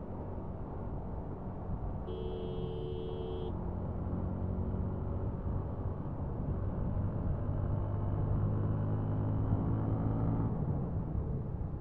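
Motorcycle engine running at steady cruising speed under the rider, with road and wind noise. A horn sounds for about a second and a half about two seconds in. Near the end the engine note grows louder, then eases off.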